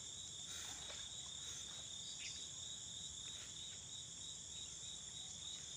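Steady chorus of crickets, a continuous high-pitched trill that does not let up.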